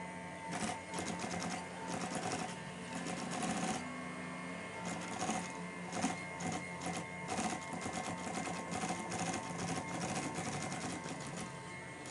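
Industrial sewing machine stitching a white binding strip onto the edge of quilted vinyl: a fast, even needle clatter over a steady motor hum.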